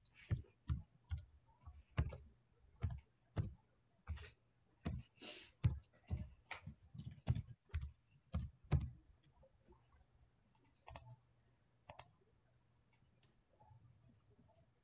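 Computer keyboard typing and clicking in irregular strokes, a couple a second for the first nine seconds or so, then sparser and fainter.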